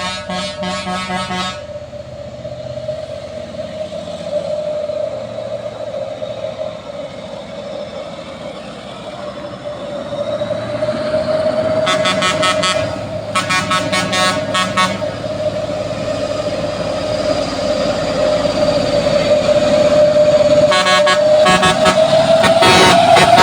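Heavy machinery running with a steady whine, while a horn sounds in four spells of one to two seconds each; the whole grows louder toward the end.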